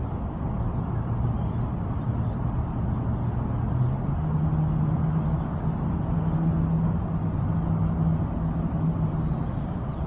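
Engine of a nearby motor vehicle running steadily over a low rumble. Its hum steps up in pitch about four seconds in and holds there until near the end.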